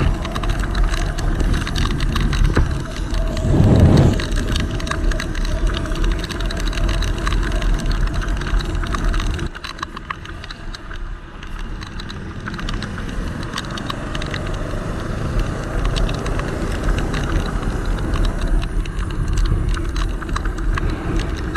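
Riding noise from a moving motorcycle: wind rushing over the microphone with engine and road rumble underneath. There is a brief louder rush about four seconds in, and the noise drops quieter about halfway through.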